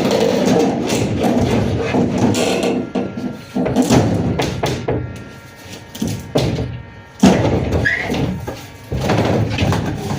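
Background music with a beat, loud throughout, dipping a few times.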